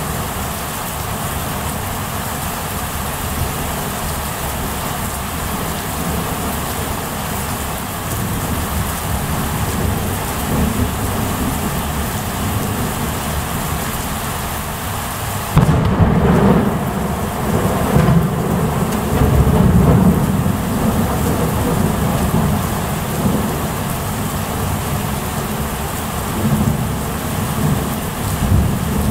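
Steady rain, then a little past halfway a sudden thunderclap that rolls on as rumbling thunder for about six seconds before the rain alone carries on.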